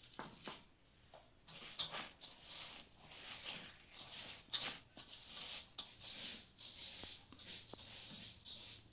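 A hand mixing rice in a stainless steel bowl: grains rustling and scraping against the metal in irregular strokes, with a few light clicks.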